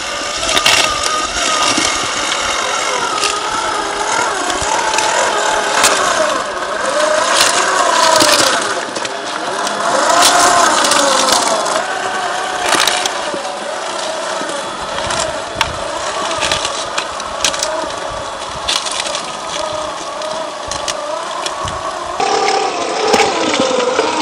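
Electric motor and gear drive of a Traxxas TRX-4 RC crawler whining, the pitch rising and falling with the throttle as it creeps over rocks. Tyres crunch on gravel and stones click and knock under the wheels.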